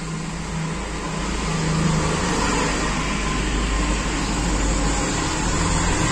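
Steady mechanical rumble with a low hum, like an engine or traffic running in the background. It grows louder about a second in and then holds steady.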